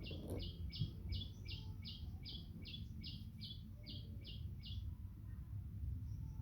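A bird calling a steady series of short, high chirps, about two or three a second, that stops about five seconds in.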